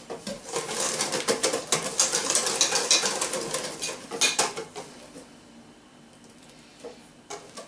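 Wire whisk beating flour, egg and milk batter in a stainless steel bowl: fast, rattling strokes of the wires against the metal. The whisking stops about four and a half seconds in as the whisk is lifted out, with a few light taps near the end.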